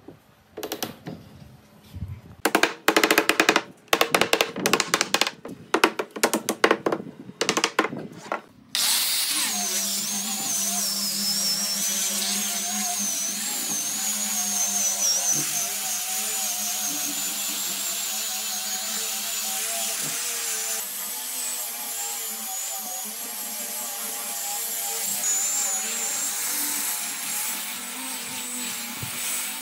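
A run of loud, irregular knocks for the first eight seconds or so. Then an angle grinder fitted with a sanding disc starts up about nine seconds in and runs steadily against a wooden table edge, sanding it, with a high whine that wavers a little.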